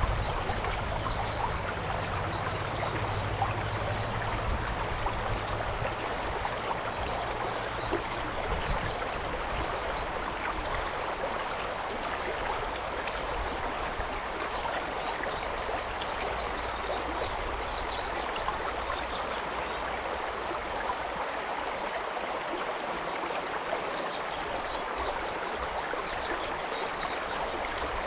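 Stream water flowing steadily, an even, constant rush. A low hum sits under it for the first eight seconds or so, then fades out.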